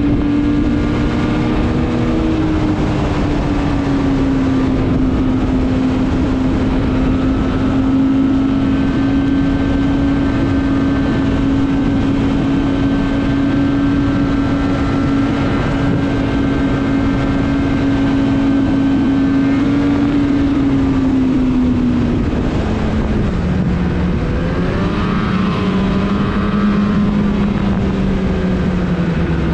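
Snowmobile engine running at a steady pitch. About three quarters of the way through the note drops lower as the engine slows.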